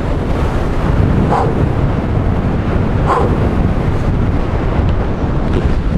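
Wind buffeting the microphone in a steady low rush, with two short bark-like calls about one and a half and three seconds in.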